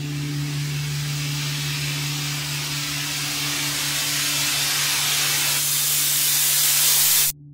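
Loud static-like hiss of white noise that starts suddenly, grows a little louder and cuts off abruptly about seven seconds in, over a steady low drone.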